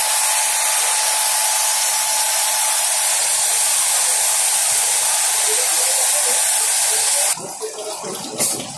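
Wash-water spray jets on a sludge thickener drum hissing steadily while washing the drum screen, then cutting off suddenly about seven seconds in. A brief knock follows near the end.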